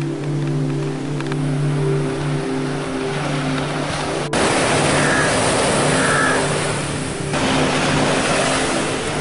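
Background music of steady, sustained chords over the wash of sea surf on a beach. The surf gets abruptly louder about four seconds in and changes again about seven seconds in.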